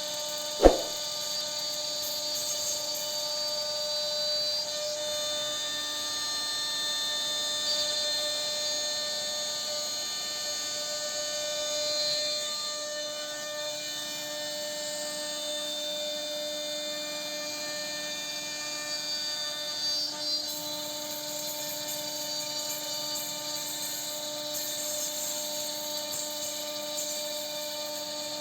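CNC router spindle running steadily as it carves wood, a constant high-pitched whine with hiss, with a single sharp click just under a second in.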